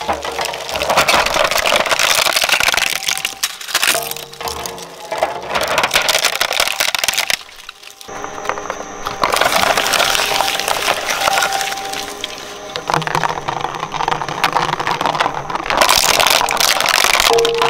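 A shredder crushing hard plastic toys: a dense, continuous crackle of snapping and splintering plastic that eases briefly about four seconds in and again around seven and a half seconds in.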